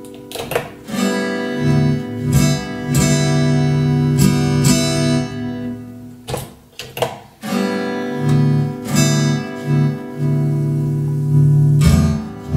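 Acoustic guitar music with strummed chords, played back through the mixer while its channels are tested.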